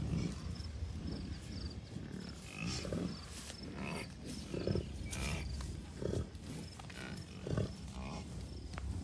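Bison cows and calves grunting, short low grunts every second or two, over wind buffeting the microphone.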